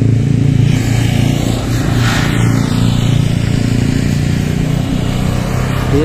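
Motorcycle engine running steadily close by.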